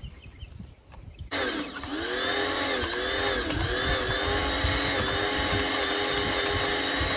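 Electric pressure washer's motor and pump switching on abruptly a little over a second in and running steadily; its pitch dips a few times as it takes load before settling. It is giving little pressure, which the users put down to air not bled from the line.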